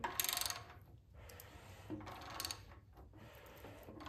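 Ratchet on the crank bolt clicking in two short bursts, near the start and about halfway through, as a big-block Mopar stroker's crankshaft is turned over by hand against a piston stop to find true top dead center.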